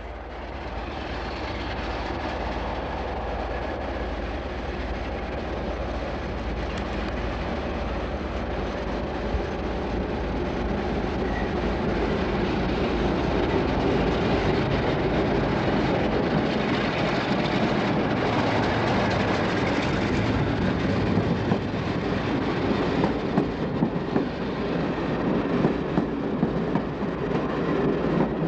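British Rail Class 47 diesel locomotive approaching and passing with a train of coaches, its engine getting steadily louder as it nears. In the last few seconds the coaches' wheels click over the rail joints.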